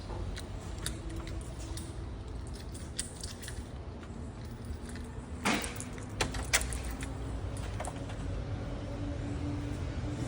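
A car engine running steadily, with a series of sharp metallic clicks and clatters over it, the loudest about five and a half seconds in.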